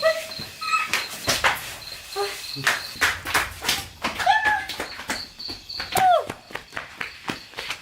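Crickets chirping steadily in a fast pulsing trill, over many sharp knocks and taps and a few short voice sounds.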